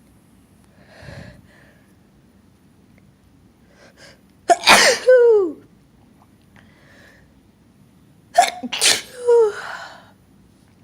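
A person sneezing twice, about four seconds apart. Each sneeze is a sharp burst followed by a voiced cry that falls in pitch.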